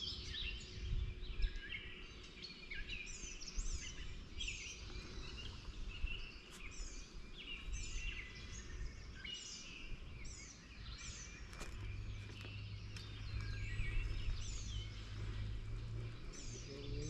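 Songbirds chirping over and over, short high notes falling in pitch, over a low outdoor rumble. A low steady hum comes in about two-thirds of the way through.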